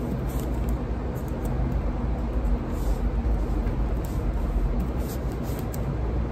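Laptop keyboard keys tapped in short irregular runs, faint against a steady low rumble.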